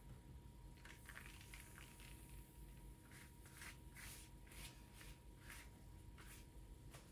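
Near silence with faint, irregular soft rustles and light clicks, as of small objects being handled.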